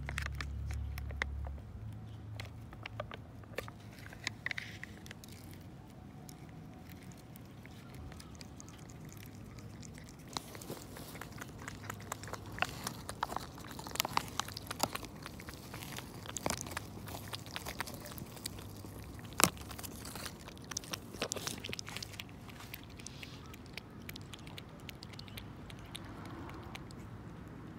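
Close handling of cat-treat packaging: irregular plastic crinkling and sharp clicks as a treat cup's lid is peeled and a treat pouch is squeezed into a small plastic bowl, busiest in the middle. Near the end a cat licks the treat from the bowl.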